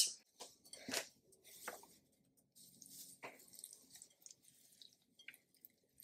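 Water poured from a jug into a glass bowl of dry sphagnum moss to soak it, with faint wet squishing and crackling as a hand presses the moss down, and a few soft knocks.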